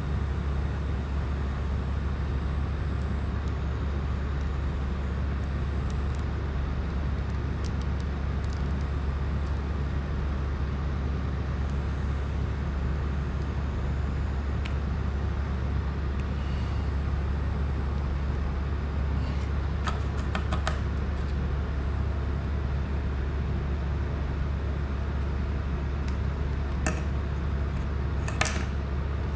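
A steady low hum, with a few light clicks and taps of tools and small drone parts being handled about twenty seconds in and again near the end.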